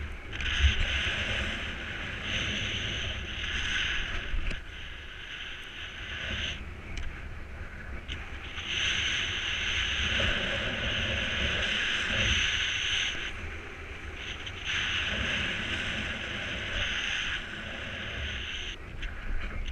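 Wind rushing over the microphone in paraglider flight: a constant low buffeting, with a higher hiss that comes and goes in spells of a few seconds.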